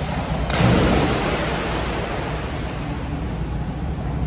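A dog jumping off the edge into an indoor pool: one loud splash about half a second in, followed by a steady wash of water noise over a low hum.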